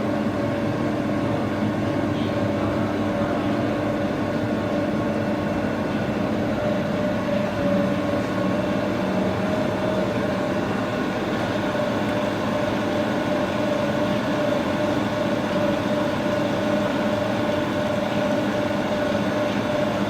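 Extra heavy duty lathe running, its 5 HP motor, V-belt drive and gearbox giving a steady mechanical hum with a constant whine that holds the same pitch throughout.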